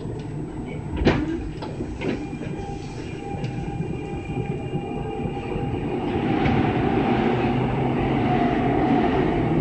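Kintetsu 6020 series electric commuter train running, heard from inside the driver's cab: a sharp knock about a second in and a lighter one near two seconds, thin steady tones through the middle, and the running noise growing louder from about six seconds on.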